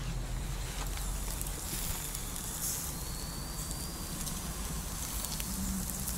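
Meat skewers sizzling over charcoal, with faint scattered crackles, over a steady low hum.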